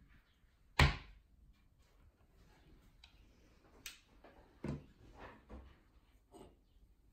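A metal cooling brick set down with one sharp, loud knock onto a wooden board, pressing on freshly applied hot knot filler to cool it, followed later by a few softer knocks and taps of objects handled on the wooden workbench.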